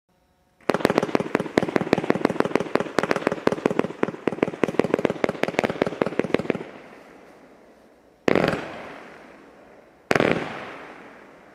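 Consumer New Year's Eve fireworks going off: a rapid string of sharp bangs, about six or seven a second for some six seconds. Then two single, louder bangs follow a couple of seconds apart, each trailing off in a long echo.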